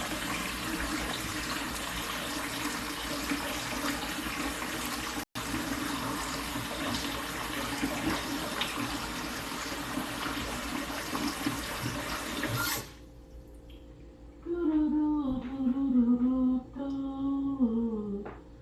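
Kitchen tap running steadily into the sink, shut off suddenly about thirteen seconds in. A few seconds later a woman hums a short tune.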